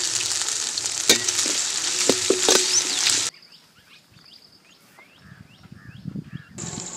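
Ginger-garlic paste sizzling in hot oil with chopped onions and green chillies in a pan, with a few sharp clicks. The sizzle cuts off about three seconds in, leaving faint repeated chirps and a soft low rustling.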